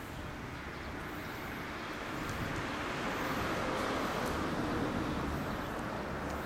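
Suzuki Tempter 400's air-cooled single-cylinder engine idling steadily. It grows louder over the first few seconds.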